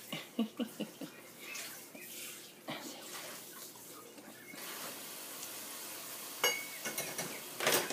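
Light handling noise: a few small clicks and taps as a tiny puppy is held and moved about in hands close to the microphone, with a sharper click near the end.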